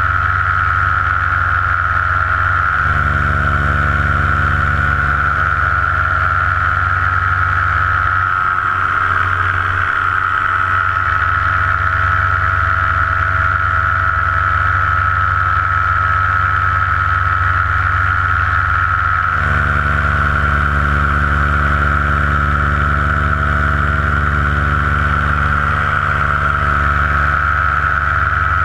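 Paramotor engine and propeller running steadily in powered flight: a constant high whine over a heavy low drone, with the engine note shifting slightly a few times.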